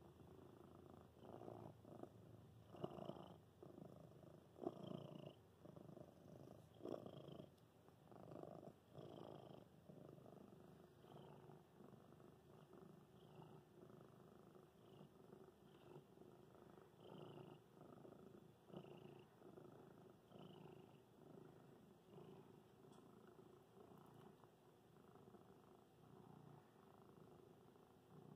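Domestic cat purring while being stroked. The purr is faint and swells and fades with each breath, about every one and a half seconds, and is a little stronger in the first several seconds.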